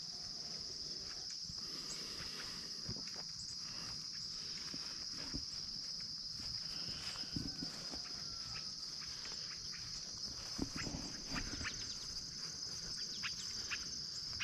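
A steady chorus of crickets keeps up one unbroken high trill in the morning woods. Scattered faint clicks and rustles sound throughout, and a few short high chirps come near the end.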